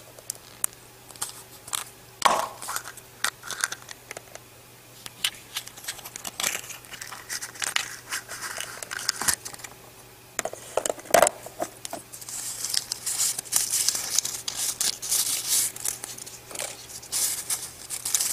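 Yellow plastic Kinder Surprise capsule being handled and opened, with sharp plastic clicks and taps. Then the small toy pieces and their paper wrappings are unwrapped, with crinkling that grows busier in the second half.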